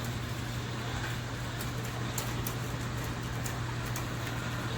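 Steady outdoor street background noise: an even wash of traffic-like sound with a constant low hum and scattered faint ticks.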